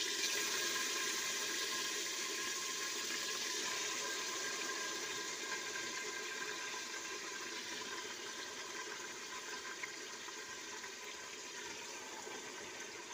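Pieces of meat sizzling in hot oil in an open pressure cooker: a steady sizzle that slowly dies down as the meat fries.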